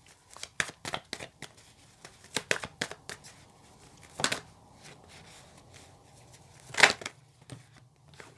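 Tarot deck shuffled overhand by hand: a run of short, crisp card slaps and flicks, a few each second, with two louder ones about four and seven seconds in.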